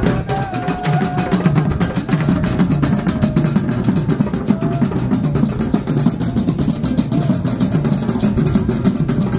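Music driven by fast, steady drumming.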